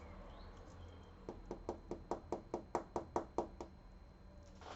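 Fingers tapping on a thin smoked plastic PC case side panel: a quick even run of light knocks, about six a second, starting about a second in and stopping a little past the middle, with louder knocks starting again right at the end.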